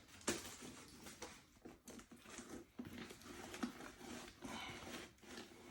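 Faint handling noise: scattered light clicks and soft rustles in a quiet small room.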